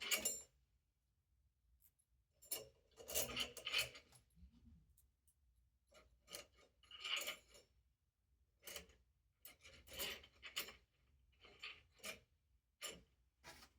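Screws being fitted through the outer motor plate into a golf caddy wheel: irregular short metal scrapes and clicks, several separate bursts.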